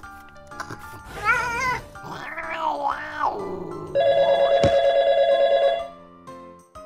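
Cartoon cat voice over background music: two wavering meows in the first half, then a loud, rapidly pulsing purr about four seconds in that lasts about two seconds.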